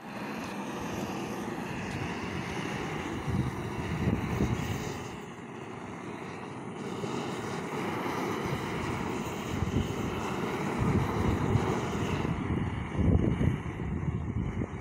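Gas torches burning steadily as 4 mm bitumen waterproofing membrane is torched onto a roof, a continuous rushing noise whose low rumble swells now and then.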